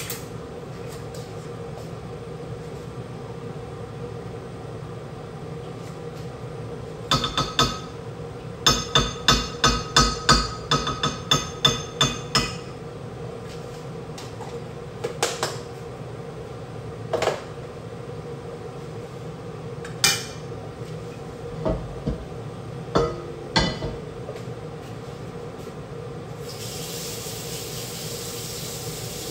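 A metal spoon knocked rapidly against a frying pan to shake butter off it: a quick run of about a dozen sharp, ringing knocks, then a few single knocks, over a steady hum. Near the end the butter starts sizzling as it melts in the hot pan.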